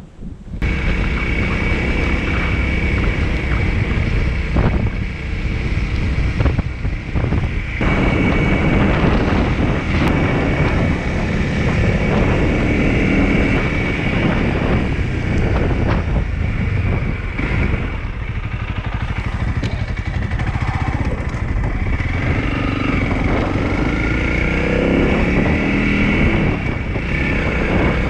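Honda CRF 300L single-cylinder four-stroke engine running while riding, mixed with wind buffeting on the microphone. It comes in abruptly about half a second in, and the revs rise and fall near the end.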